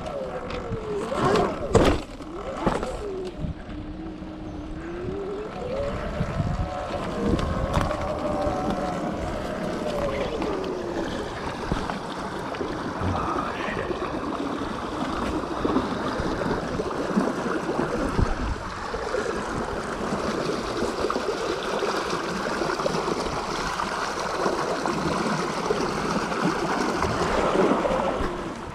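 Sur Ron Light Bee X electric dirt bike under way on a trail: the motor's whine rises and falls with speed over wind noise on the microphone and tyre and chain noise, with a few sharp knocks from bumps near the start.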